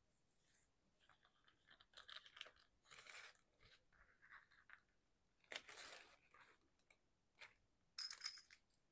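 Faint handling of small craft pieces on a tabletop: soft rustles and light taps, then near the end a quick run of sharp, bright clicks, the loudest sounds.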